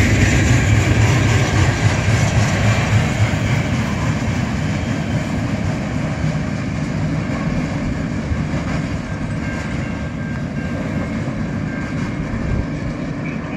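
Wheels of a freight train's tank cars rolling along the rails as the train passes, the sound fading steadily as the last cars move away.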